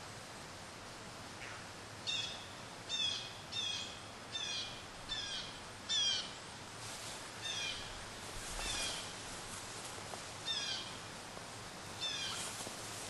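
A bird calling over and over, short high falling notes about once a second, starting about two seconds in and coming more sparsely later, over a faint steady hiss.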